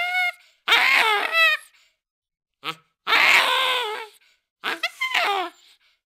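Baboon screaming: a series of harsh calls about a second long each, wavering in pitch, with short gaps between them and one very short call in the middle.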